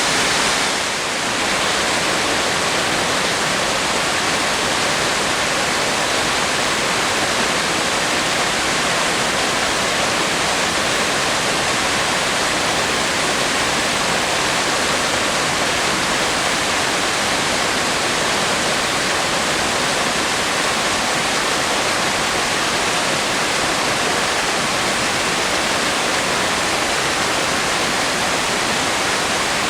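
Water of the Yonako Great Waterfall plunging, a loud, constant, even rush with a slight brief dip in level about a second in.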